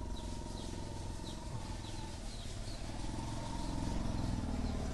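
Steady low background rumble with small birds giving short, high chirps every second or so.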